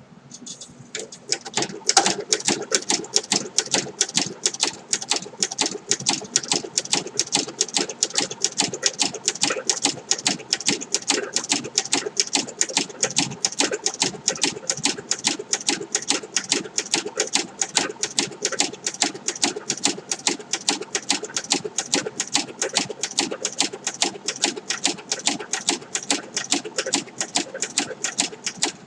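Singer 7-34 industrial sewing machine stitching leather, its needle and mechanism clacking at an even pace of about three stitches a second. It starts up about a second in and runs without a break until it stops near the end.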